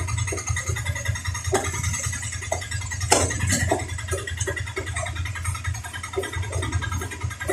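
An engine running with a steady low drone, with scattered short knocks over it and one louder knock about three seconds in.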